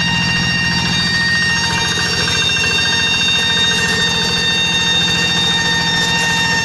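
Paddy-field tractor engine running steadily under fast, even low pulsing, with a loud, steady high-pitched whine ('nging') ringing over it.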